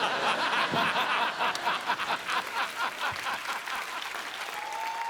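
Studio audience laughing and clapping, a dense crowd reaction that slowly dies down near the end.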